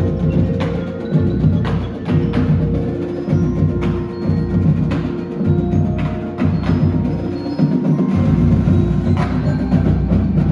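Marching band percussion playing: mallet instruments and chimes with sharp struck accents about once a second over held low notes.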